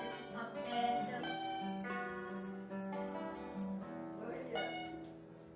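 Guitar being plucked, playing a run of single notes over held lower notes, fading out near the end.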